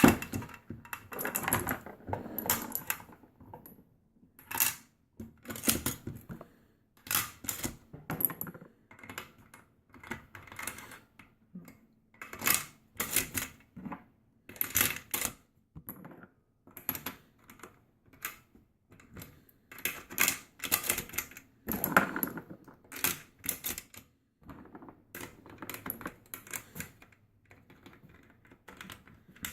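Cartridges being loaded into a firearm magazine with a MagLula speed loader: sharp metallic clicks and snaps, often two or three in quick succession, separated by short pauses as each round is pushed in.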